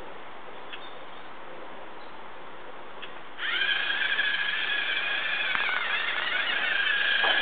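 LEGO Mindstorms NXT robot's servo motors whining as the robot drives off to catch a ball, starting suddenly about three and a half seconds in with a brief upward glide, then holding steady. A couple of faint clicks come before it.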